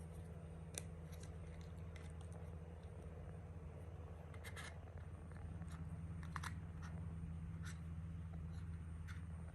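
Faint handling of Hubba Bubba gum packaging: a few scattered small clicks and rustles as a piece is taken, over a steady low hum.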